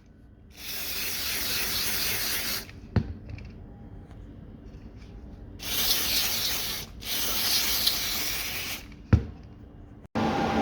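Compressed air hissing from a blow gun in three bursts of a second or two each, the kind used to blow dust out of a spindle amplifier's cooling fan, with a sharp click after the first burst and another after the last. Near the end a steady machine hum starts up.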